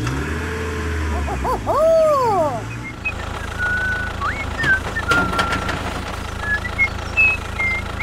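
Small engine running steadily. About two seconds in come swooping whistle-like glides, then short high chirps and a few sharp clicks.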